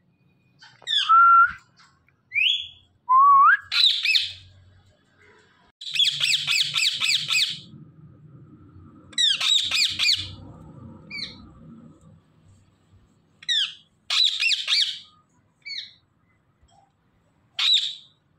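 Indian ringneck parakeets calling: a few gliding whistles in the first few seconds, then repeated harsh squawks. Some are single, some come in rapid pulsing runs of about a second and a half, with short gaps between.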